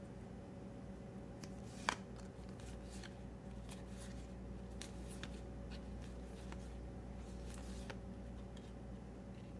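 Cardfight!! Vanguard trading cards being slid and flipped one at a time in the hands, soft card-on-card rustles and light clicks, with one sharper click about two seconds in.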